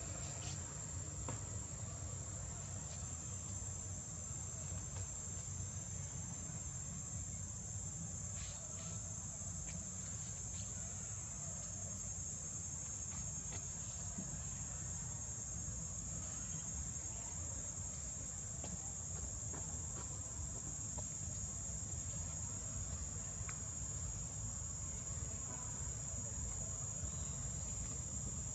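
Steady high-pitched drone of insects, with a low steady rumble underneath.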